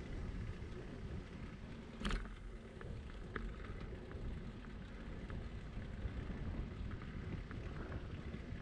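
Bicycle rolling along asphalt: a steady low rumble of tyre noise and wind on the microphone, with one sharp click about two seconds in and light ticks scattered after it.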